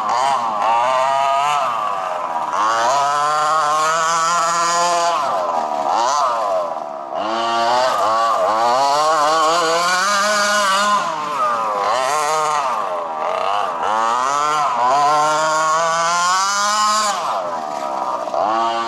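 Nitro RC monster truck's small glow-fuel two-stroke engine running at high revs, its pitch rising and falling over and over as the throttle is opened and backed off.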